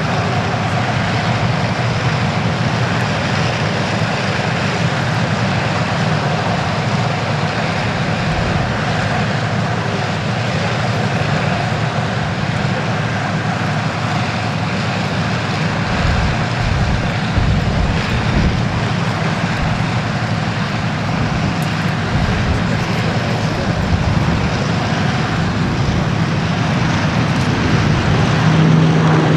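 Piston-engined vintage propeller aircraft running steadily: a continuous engine drone that grows a little louder near the end.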